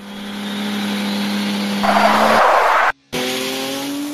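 Dubbed race-car sound effects: an engine revving steadily, then a loud burst of tyre screech about two seconds in. The sound cuts off suddenly just before the three-second mark, and an engine then accelerates with rising pitch.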